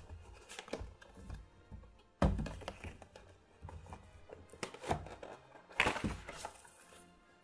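Cardboard toy box being handled and opened on a table: a series of knocks and thumps, the loudest about two seconds in, then near six seconds a rustling scrape as the plastic tray slides out of the box. Faint background music runs underneath.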